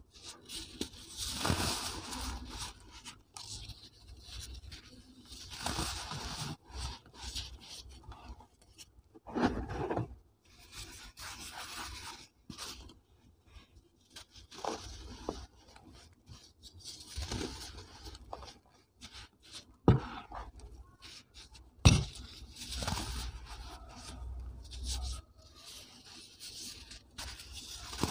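Hands crushing and crumbling soft, powder-coated dyed cement blocks: irregular gritty crunching and rubbing as pieces break off and fall into loose powder. Two sharp snaps about two seconds apart in the latter part, as a block breaks.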